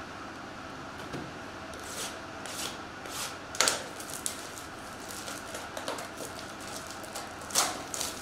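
Cellophane shrink wrap on a trading card box being slit with a box cutter and torn off: a run of crinkles and rips, the loudest two about three and a half seconds in and near the end, over a steady background hum.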